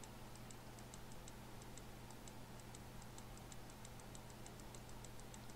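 Computer mouse button clicked over and over in quick succession: faint light clicks, about four or five a second, over a low steady hum.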